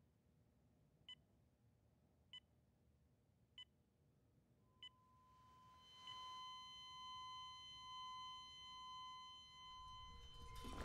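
Hospital bedside heart monitor beeping faintly and evenly, five short beeps a little over a second apart, then, about five seconds in, going over to one continuous steady tone: a flatline alarm, the sign that the patient's heart has stopped.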